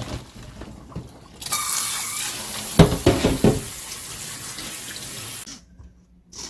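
Kitchen tap running onto parboiled beef tendon in a stainless mesh strainer in a steel sink, rinsing off the blood and scum from the first boil. The water comes on about a second and a half in and shuts off near the end, with a few clattering knocks around the middle.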